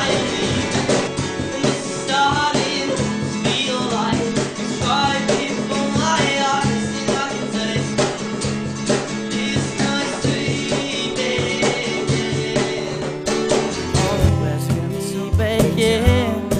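Acoustic band music: strummed acoustic guitars over a steady cajón beat, with a male voice singing. About thirteen seconds in it cuts abruptly to a different acoustic recording.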